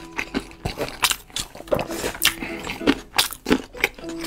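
Close-up eating sounds: noodles being slurped and food chewed with wet, irregular smacks and slurps, over faint background music.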